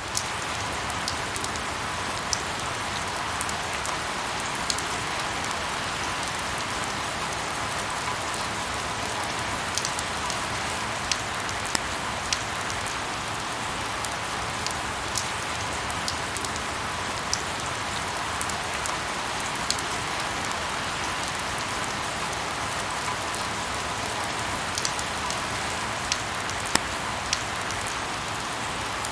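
Light rain falling steadily: an even hiss, with scattered individual drops ticking sharply on a surface.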